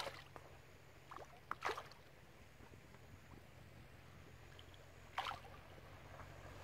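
A chub splashing at the surface of the river close to the bank: one splash at the start, two more in quick succession about one and a half seconds in, and another about five seconds in.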